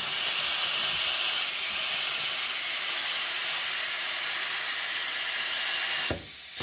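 Compressed air from an air compressor hose hissing as it is blown into a refrigerator's drain tube, a loud steady hiss that cuts off about six seconds in. The air seems to meet resistance, as if the drain line were clogged.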